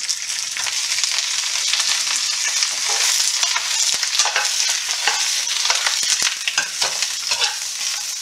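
Mustard greens, freshly added to hot oil with garlic and ginger, sizzling steadily in a nonstick pan. A stainless steel ladle tosses them, scraping and knocking against the pan again and again.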